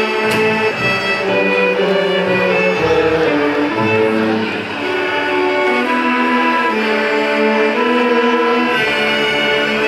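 Middle school string orchestra of violins and cellos playing a piece together: sustained bowed notes moving in a melody over lower cello parts.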